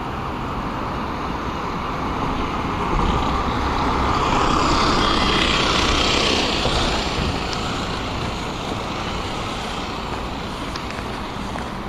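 Road traffic with a bus passing close by: its engine and tyre noise swell to a peak about five to six seconds in, then fade back into the general traffic.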